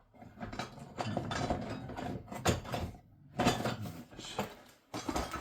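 Metal clattering and scraping as the partly cut boiler tank is handled and pried at: a run of irregular knocks and scrapes.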